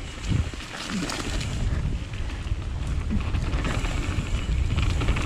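Wind rushing over the microphone and a mountain bike rumbling over the trail as it picks up speed downhill, growing louder over the first two seconds and then holding steady.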